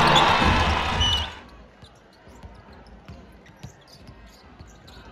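A loud arena din with music over the sound system breaks off sharply about a second and a half in. It gives way to much quieter court sound: a basketball being dribbled on the hardwood floor as a few faint, scattered knocks.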